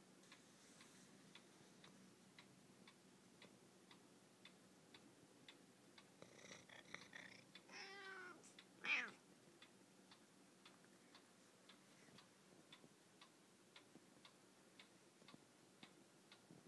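Siamese cat meowing a few times, from about six to nine seconds in, the last call short and the loudest. A clock ticks faintly and steadily throughout, with little else to hear.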